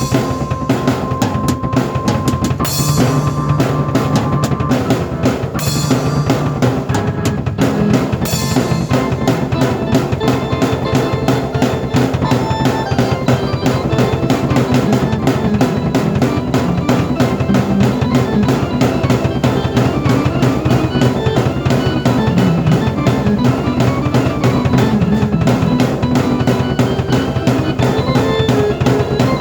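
A drum kit and a keyboard played at the same time by one player: a fast, busy drum beat with bass drum under keyboard notes, and cymbal crashes about 3, 6 and 8 seconds in.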